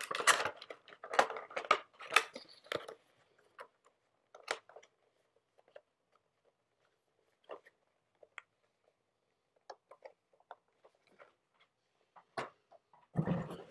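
Toy packaging being handled: crinkling and rustling for the first few seconds, then scattered small clicks and taps, and a louder bout of rustling with a low thump near the end.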